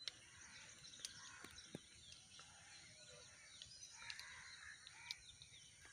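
Faint outdoor ambience: small birds chirping now and then over a steady high hiss, with a few light clicks.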